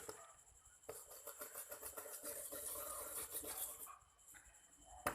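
A brush scrubbing the water-damaged circuit board of a mobile phone in quick, fine strokes, from about a second in for about three seconds, while the board is cleaned.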